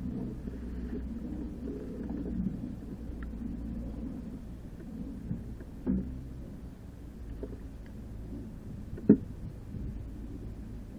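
Steady low wind rumble on an action-camera microphone, with two sharp knocks of gear against the kayak's plastic hull, a small one about six seconds in and a louder one about nine seconds in.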